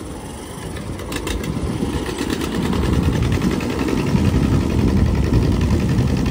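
A nearby engine running steadily, growing louder over the first few seconds.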